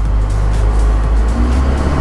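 Isuzu 4HL1 4.8-litre turbo-diesel engine of an NPS81 4x4 truck pulling in four-wheel-drive low range, a steady low drone. Background music plays over it.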